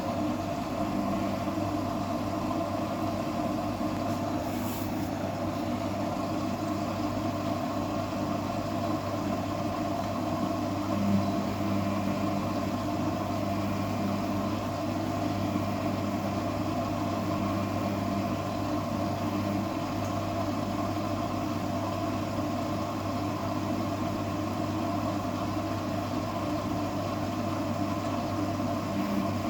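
Samsung WF0600WJV front-loading washing machine running through its wash cycle with a steady motor hum. There is one brief louder knock about eleven seconds in.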